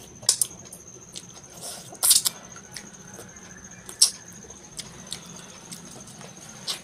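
Close-miked eating sounds: sharp wet mouth clicks and lip smacks from chewing food eaten by hand, a handful of them, loudest about two and four seconds in, over a faint steady high-pitched whine.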